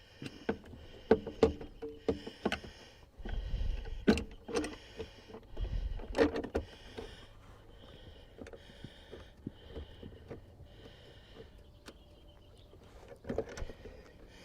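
Handling noise from a car seat being shifted onto its floor mounts: a run of clicks, knocks and metal clunks, with heavier low thumps about three and a half and six seconds in, then quieter fiddling and a couple of knocks near the end.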